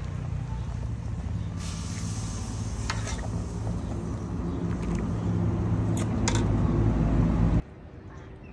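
A steady low rumbling hum, like a motor, grows a little louder and then cuts off suddenly near the end. A few light metal clinks from a steel ladle against the pot and bowl sound over it.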